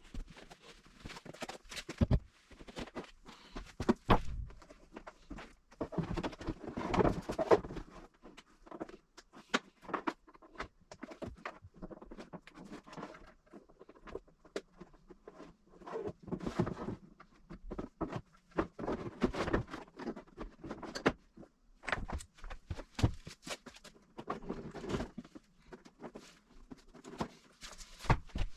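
Work noises: irregular clicks, knocks and rustling from tools and parts being handled, with no steady machine running.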